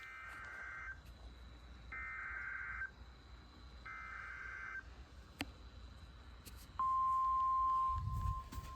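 Emergency Alert System SAME header: three short bursts of warbling data tones about a second apart. About seven seconds in, a steady single-pitched attention tone starts, announcing a severe weather warning.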